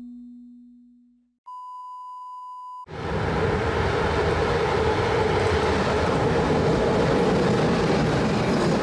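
A low tone dies away, then a steady high beep sounds for about a second and a half. It gives way abruptly to a train passing close by: a loud, steady rushing rumble of the locomotive and wagons on the rails.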